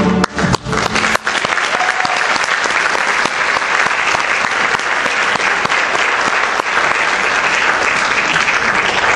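A school string orchestra's final chord cuts off just after the start, followed by an audience applauding steadily.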